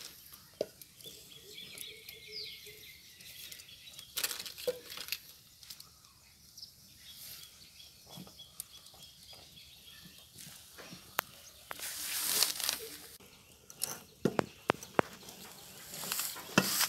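Wooden stick stirring ragi (finger millet) flour paste in an aluminium pot, with scattered knocks and scrapes against the pot. A louder scraping burst comes about twelve seconds in, followed by a quick run of knocks.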